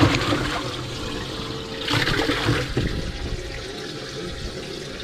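Water gushing and splashing, with a louder surge at the start and another about two seconds in.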